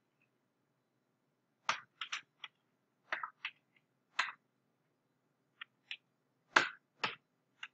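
Computer keyboard keys struck one at a time while typing code: about a dozen short, sharp clicks at irregular spacing, some in quick pairs, with silent gaps between.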